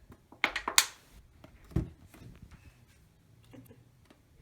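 Plastic water bottle crackling and clicking as it is squeezed and released to suck an egg yolk off the white, a quick cluster of sharp clicks in the first second, then a single dull knock near two seconds in.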